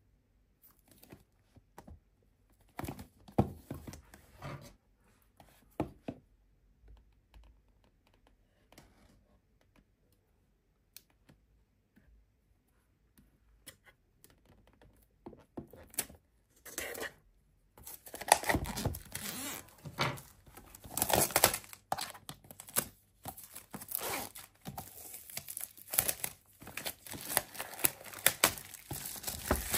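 Clear plastic shrink wrap crinkling and tearing as it is peeled off a cardboard box. There are a few scattered rustles and taps at first, then a quiet stretch, then continuous crinkling over the last third.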